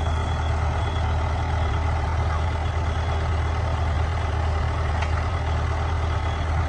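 Heavy diesel engine running steadily at a low, even rumble.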